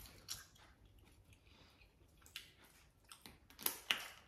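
Faint clicks and scrapes of a metal fork and spoon against a ceramic plate of food. A few scattered taps come first, then a small cluster near the end.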